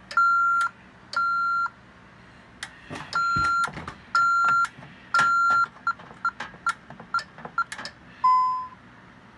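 Alarm keypad's piezo sounder beeping the fire-alarm temporal-three pattern: three half-second beeps, a pause, then three more. This shows that the tested 2-wire smoke detector has tripped the fire zone. It is followed by a quick run of short key beeps with button clicks as the code is entered to silence the alarm, and one longer, lower beep near the end.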